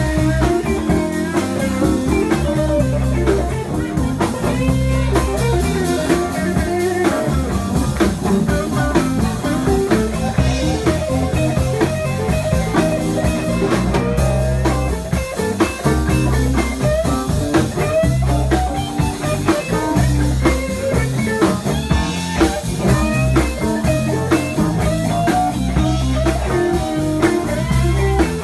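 Live blues band playing an instrumental passage: electric guitar lead with bending notes over bass and drums.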